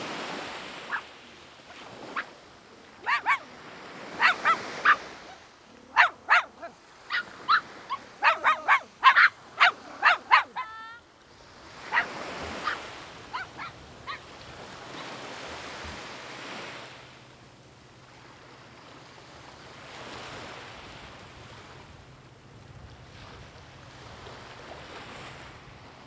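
A dog barking repeatedly in short, sharp barks through roughly the first half, over waves washing onto the beach, which swell and fade every few seconds.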